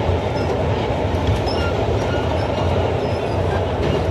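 Vintage R1-R9 subway train running on the express track in the tunnel: a steady rumble of wheels on rail.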